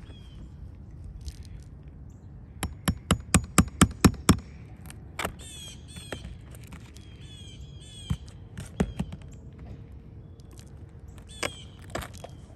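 A hammer striking a cat's paw nail puller in a quick run of about seven blows, roughly four a second, to dig under a roofing nail head, followed by a few single knocks.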